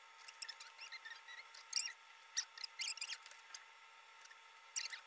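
Cardboard 3D puzzle pieces being pressed out of their die-cut sheet and handled: faint, scattered crackles and squeaks, bunched about two seconds in, around three seconds, and near the end.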